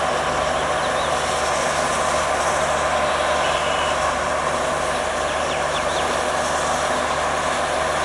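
Steady drone of the diesel generator set in the train's end-on-generation power car, running at a constant even hum.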